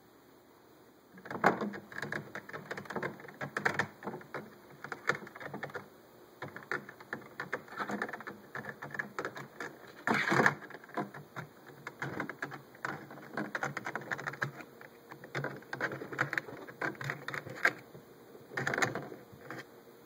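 A raccoon's paws and claws clattering and scratching on a plastic hummingbird feeder: irregular rapid clicks and scrapes starting about a second in, with a louder burst in the middle and another near the end.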